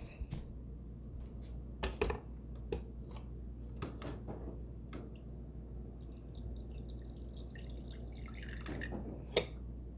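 Water filling a bowl: scattered drips and small knocks, then a steadier stream of running water from about six and a half seconds to nine, and a sharp click near the end.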